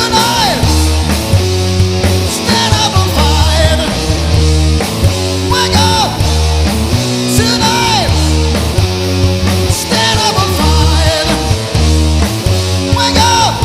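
Rock band playing live: loud, dense full-band music with a repeating bass pattern, and a line that slides in pitch every couple of seconds.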